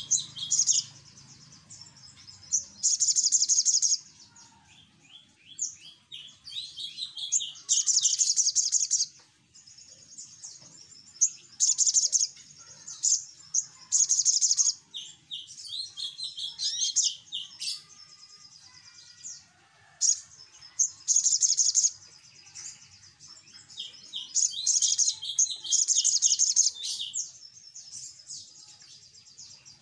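Olive-backed sunbird (sogok ontong) singing loud, high, rapid trills in bursts of about a second every two or three seconds, with runs of quick chattering notes between them.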